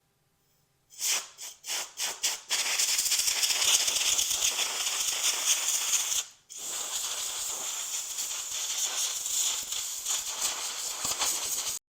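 Compressed-air blow gun blowing dust out of a mini-split filter: a few short blasts, then a long hissing blast, a brief pause about six seconds in, and a second long blast that cuts off suddenly near the end.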